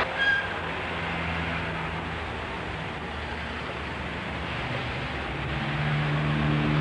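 Street traffic close behind a city bus: a steady traffic rumble with the bus's engine hum growing louder near the end. Just after the start there is a brief high-pitched squeak.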